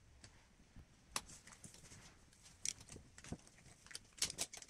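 Scattered light clicks and knocks of hand tools and metal parts being handled during engine work, irregular, with a quick cluster of clicks near the end.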